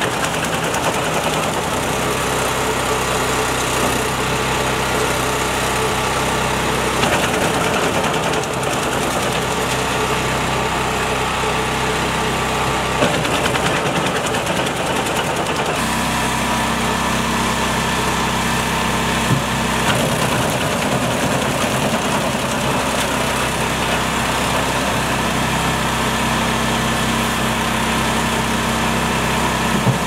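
Gasoline engine of a large trailer-mounted wood chipper running steadily while branches are fed in and chipped, with a couple of sharp knocks near the middle.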